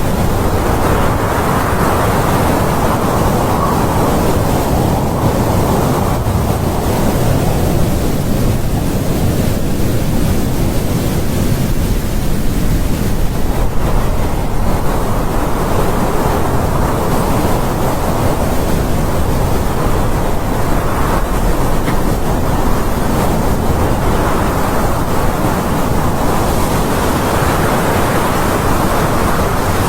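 Autumn wind blowing in a steady rush that swells and eases in slow gusts several seconds apart.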